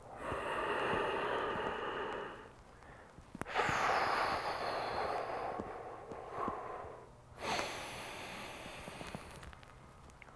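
A man's forceful, audible breathing paced with slow loaded squats: three long breaths, the last one quieter.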